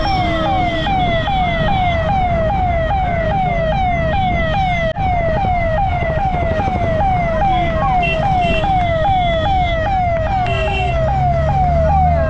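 Electronic siren sounding a fast yelp: a pitched wail that falls in pitch about three times a second, over a steady rumble of road traffic.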